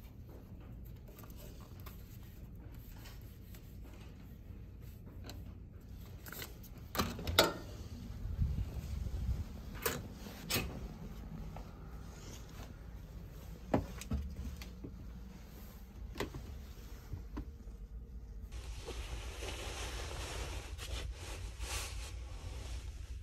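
Clicks and knocks of a cabin door's electronic card-key lock and handle, the loudest about seven seconds in and a few more after, over a steady low rumble. Near the end comes the rustle of a duvet being handled.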